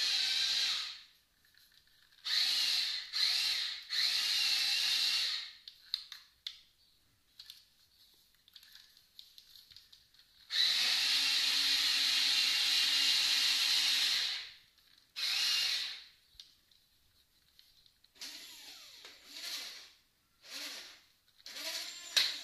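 Small electric motors of a Jamara 517J remote-control toy excavator whining in bursts as its controls are worked: several short runs and one long run of about four seconds, with pauses between them.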